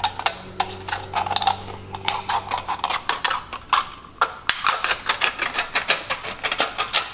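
Scissors cutting through a thin aluminum soda can: a fast run of sharp snipping clicks that come closer together in the second half.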